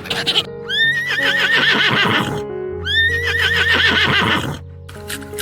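A horse whinnying twice, each call jumping up in pitch and then quavering down, about a second and a half long.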